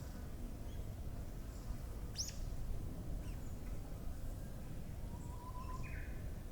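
Wild birds calling over a steady low background rumble: a sharp, very high whistle that sweeps up and down about two seconds in, and near the end a short level whistle followed by a brief higher note.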